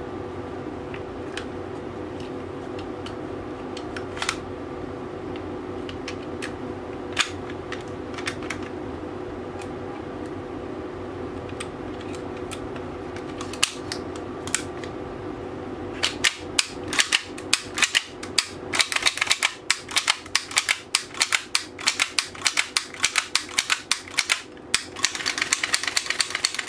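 Tokyo Marui Hi-Capa airsoft pistol being put back together, with a few scattered clicks of small parts at first. From about two-thirds of the way through, its slide is racked back and forth by hand, giving many rapid, sharp metal-and-plastic clicks.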